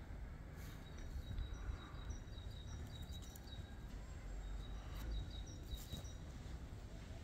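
Small birds chirping in short high notes over a steady low rumble, with a few faint clicks.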